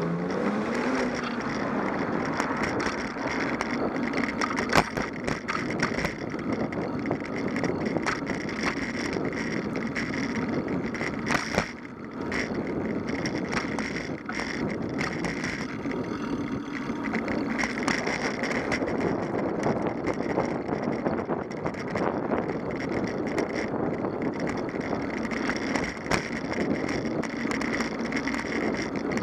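Wind on the microphone and tyre rumble from a bicycle riding along an asphalt street, picked up by a camera mounted on the bike. A few sharp knocks and rattles from bumps break the steady noise, the loudest about five seconds in.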